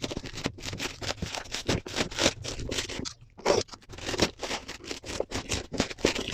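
Hands scraping and rustling the keyboard's cardboard box and packaging as it is unboxed, a quick irregular string of scratchy noises.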